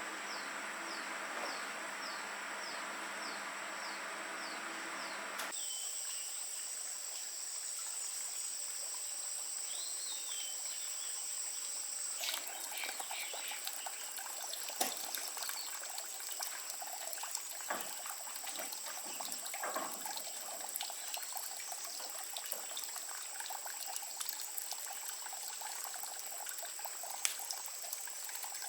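Outdoor ambience. For the first five seconds or so there is a low hum with a quick repeated chirp. The sound then changes abruptly to a steady high insect-like buzz, joined from about twelve seconds in by trickling, crackling water-like sounds and scattered light clicks.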